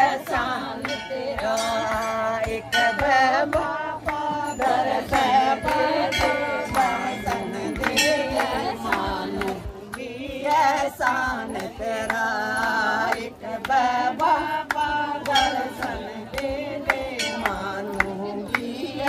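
A Hindi devotional bhajan sung by voices, with hand claps keeping time.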